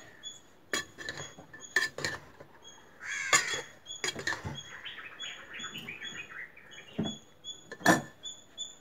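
A metal spoon clinking and knocking against a pressure cooker as its cooked contents are stirred, while a bird chirps over and over in short high notes and a crow caws.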